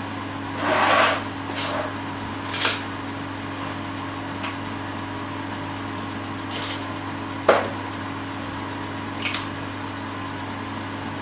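A steady low mechanical hum with a few scattered clicks and knocks of handling, the sharpest knock about seven and a half seconds in.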